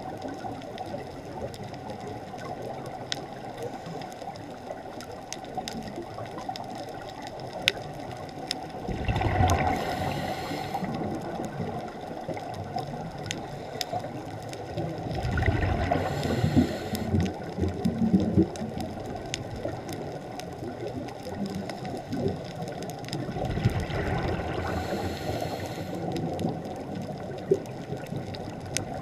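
Steady muffled underwater hiss, broken three times, roughly seven seconds apart, by the rush of a scuba diver's exhaled bubbles leaving the regulator. Faint scattered clicks throughout.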